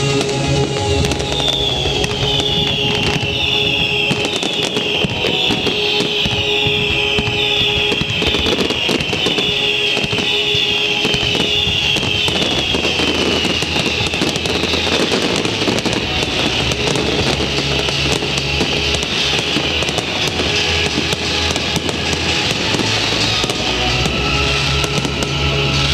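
Fireworks display with dense crackling and bangs over accompanying music. In the first half there is a run of falling whistles, about one a second.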